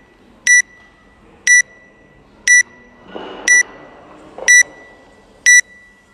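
Countdown timer giving short, high beeps once a second, six in a row, counting down the last seconds before the start signal.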